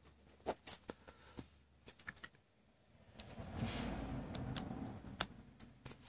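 Handling noise from fingers working a plug in a tablet's charging port: a few light clicks and taps, then a stretch of rustling from about three seconds in, with one sharper click near the end.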